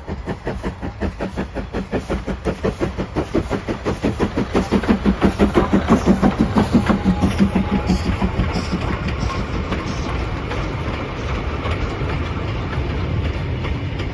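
LMS Ivatt Class 4MT 2-6-0 steam locomotive 43106 passing with a short goods train: fast, even exhaust beats, about four a second, getting louder as the engine draws level. After the middle they give way to the steady rumble and clicking of the goods wagons rolling by.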